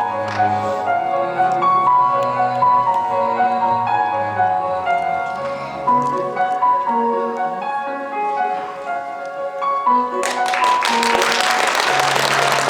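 Recorded music with a clear melody playing, and audience applause breaking out about ten seconds in over the music.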